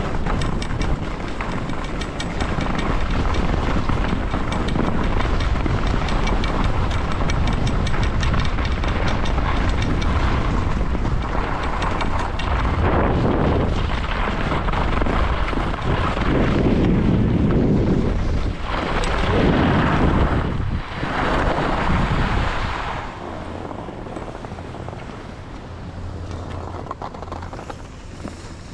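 Wind rushing over the microphone during a downhill run on a groomed ski slope, mixed with the scrape of edges sliding over packed snow. The rush swells several times through the middle and eases near the end.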